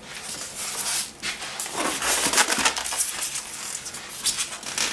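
Monitor packaging being handled and pulled at: a continuous crackling, crunching rustle of plastic and foam packing, full of small clicks.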